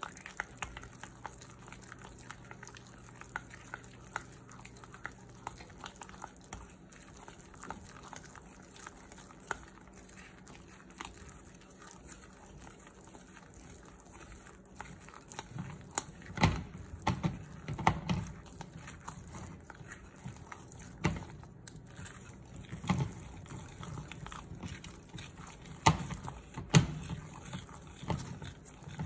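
Plastic chopsticks stirring a thick, wet batter of mashed sweet potato and banana into flour in a glass bowl: soft squelching with light clicks against the glass, getting louder and heavier about halfway through as the batter comes together.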